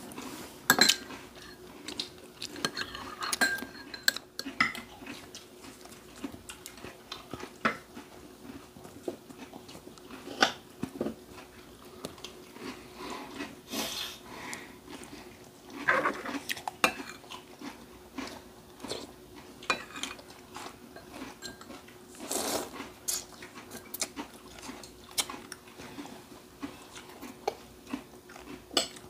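Spoons and chopsticks clinking and scraping against ceramic bowls and plates as children eat, in scattered light clicks. A faint steady hum runs underneath.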